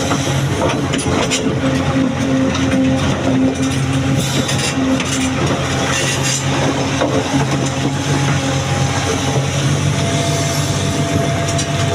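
Excavator's diesel engine running steadily, with scattered knocks and rattles of stone and steel.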